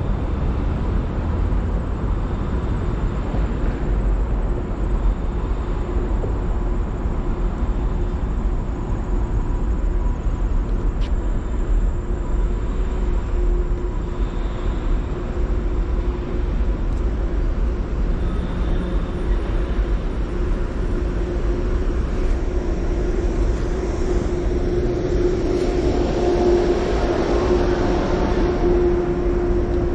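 Midtown Manhattan street ambience: a steady low rumble of city traffic, with a steady hum that grows louder in the last few seconds.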